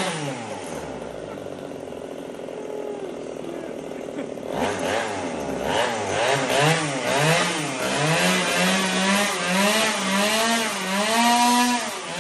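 Small engine being revved up and down over and over, its pitch rising and falling in quick sweeps. It is quieter for the first few seconds, then louder and more insistent from about four seconds in.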